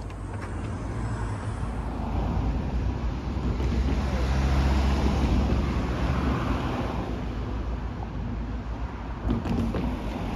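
A car driving past on the road, its engine and tyre noise swelling to a peak about halfway through and then fading, with wind rumbling on the microphone.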